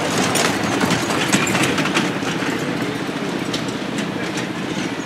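A miniature railway train running on the track: a steady rumble with scattered sharp clicks, a little louder in the first two seconds.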